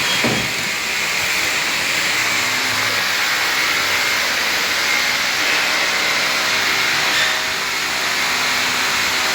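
Steady rushing noise with no clear pitch, even in loudness throughout.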